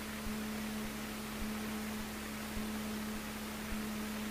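Steady hiss with a constant low electrical hum from the Cessna 150's cockpit intercom and headset audio, the open line between radio calls; the idling engine is muffled out of it.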